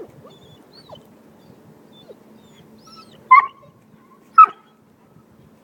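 A dog whining faintly in short squeaks, then two loud, short yips about a second apart.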